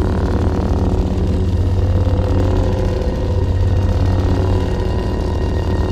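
Steady, loud low buzzing hum with a rough, fluttering texture, a science-fiction drone sound effect.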